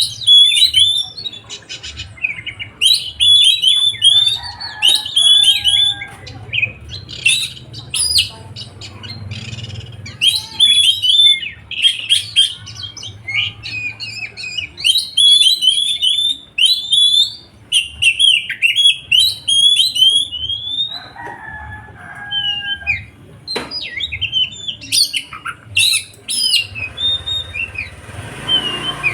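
Songbird singing a fast, varied song of sharp chirps and trills, phrase after phrase with short pauses between. The notes are high, and a faint low hum runs underneath.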